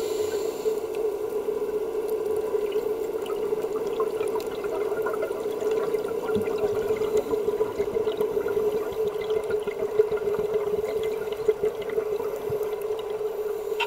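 Underwater ambience: a steady hum with scattered faint clicks and crackles.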